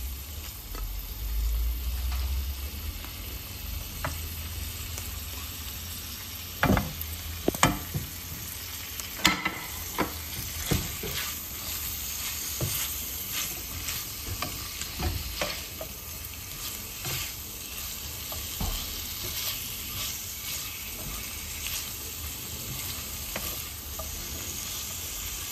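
Boneless chicken pieces and sliced onion sizzling in oil in a frying pan. Scattered knocks and scrapes against the pan come through the sizzle, most of them loudest a few seconds before the middle, as the onion goes in and is stirred.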